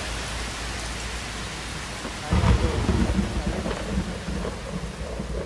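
Steady heavy rain, with a loud thunderclap a little over two seconds in and a rumble that fades away after it.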